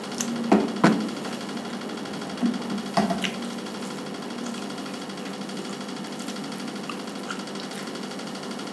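Steady machine-like hum of a small room, with a few short knocks and clicks in the first three seconds from handling the food wrapping and a bottle while eating.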